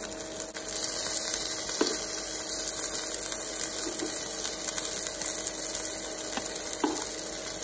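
Flour-coated chicken pieces sizzling steadily as they sear in butter and olive oil in a frying pan, with a few light clicks of metal tongs turning them.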